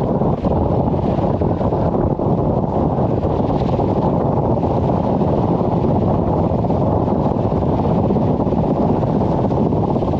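Strong wind buffeting the microphone: a steady, dense low rumble.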